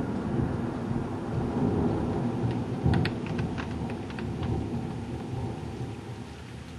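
Rolling thunder rumbling low and slowly fading away, with a brief run of sharp crackling clicks about three seconds in.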